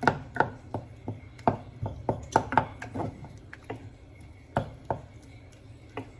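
Wooden spoon stirring a thick tomato salsa in a metal saucepan, knocking against the pot in irregular sharp taps, two or three a second, thinning out past the middle and picking up again near the end.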